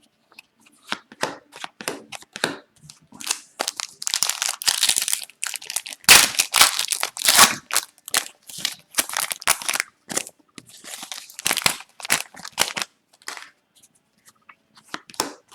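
Hockey card pack wrapper crinkling and tearing, with cards being handled and slid against each other: a run of short rustles and clicks, busiest from about four to eight seconds in.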